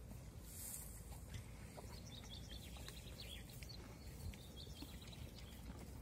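Faint crunching of two horses chewing spruce branches close to the microphone, with small birds chirping in the background from about two seconds in.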